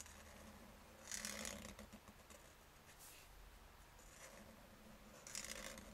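Faint strokes of a felt-tip marker on sketchbook paper: a few short strokes, the clearest about a second in and near the end.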